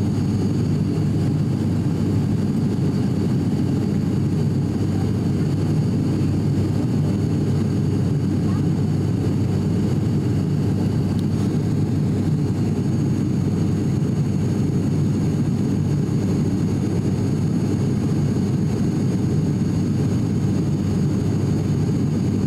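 Steady drone of an ATR 42-600's twin turboprop engines and propellers heard from inside the passenger cabin: a deep, even hum with a faint steady high whine over it.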